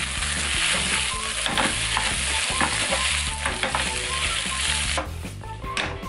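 Rice, pork belly and onion sizzling in an oiled pan as a metal spoon stirs the rice through the chunjang. About five seconds in, the sizzle drops away and leaves a few clicks and scrapes of the spoon against the pan.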